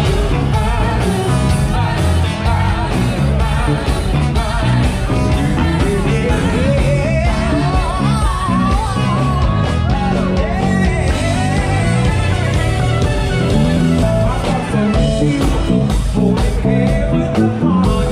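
Soul band playing live, with a lead vocalist singing over the full band; the sung line climbs in pitch about six seconds in.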